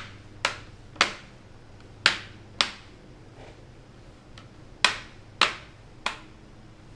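Plastic display bezel of an Alienware 15 laptop being pressed home with the fingers, its clips snapping into place in a series of seven sharp clicks at uneven intervals.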